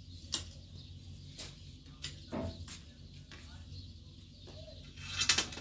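Scattered sharp knocks and clicks over a low steady hum, with a quick cluster of louder knocks near the end.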